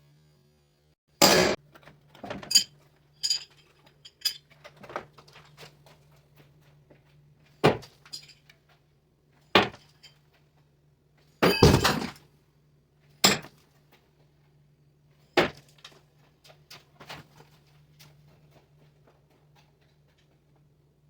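A series of about a dozen sharp clinks and knocks at irregular intervals, a second or two apart, the loudest about a second in and a cluster just before the middle, over a faint steady low hum.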